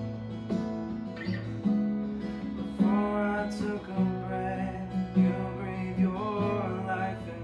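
Acoustic guitar strumming slow chords. A man sings a slow worship song over it for a few seconds in the middle.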